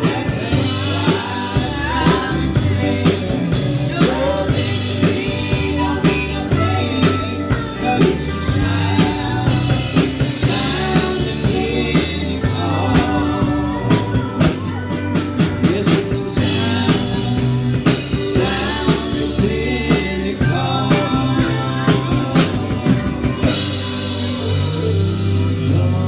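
A live band playing a gospel song, with singing over a drum kit and guitar at a steady beat. The sound cuts off abruptly at the very end.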